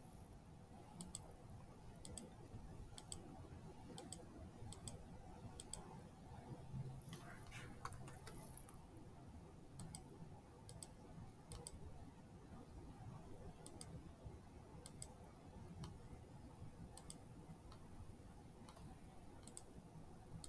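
Faint computer mouse clicks, about one a second at an uneven pace with a few short pauses, as points are placed with a drawing program's pen tool.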